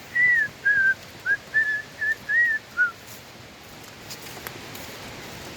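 A short run of about seven clear whistled notes, each a fraction of a second long, stepping up and down in pitch like a little tune, ending about three seconds in.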